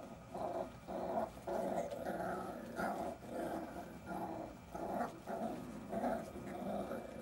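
Jack Russell Terrier puppies growling in play while tugging a toy between them, a steady run of short growls, two or three a second.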